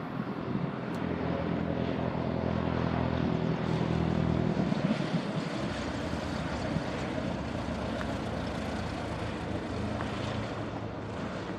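Propeller airplane's engine and propeller passing, a steady low drone that builds to its loudest about four to five seconds in, then gives way to a broad rushing noise that slowly fades.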